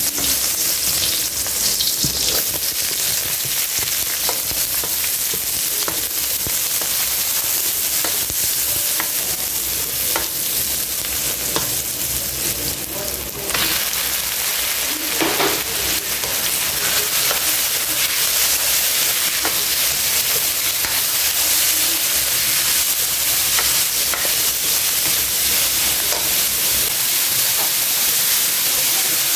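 Chopped garlic, onion and then chicken pieces sizzling in hot oil in a wok, with a spatula stirring and scraping against the pan in scattered clicks.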